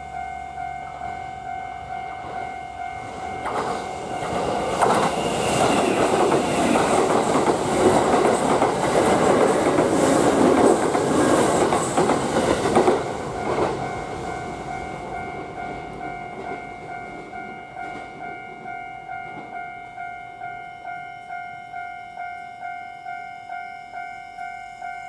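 Japanese level-crossing warning bell ringing steadily at about two strokes a second as a Kintetsu electric train passes over the crossing. The train comes in about four seconds in with wheels clattering over the rail joints, is loudest for several seconds, and is gone after about thirteen seconds, leaving the bell still ringing.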